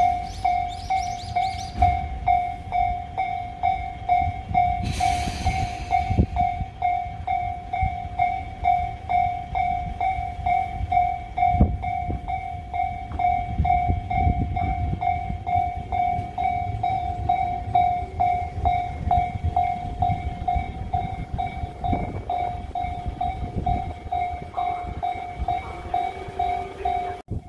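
Japanese level-crossing alarm ringing its rapid, evenly repeated electronic 'kan-kan' tone while a train passes over the crossing, its wheels rumbling and clacking over the rail joints. A short hiss comes about five seconds in.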